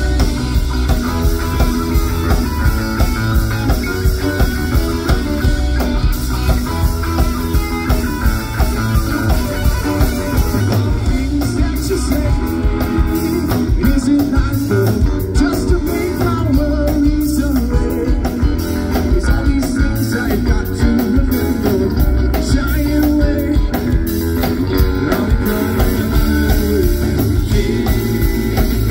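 Live rock band playing, led by electric guitar over drums with a steady beat.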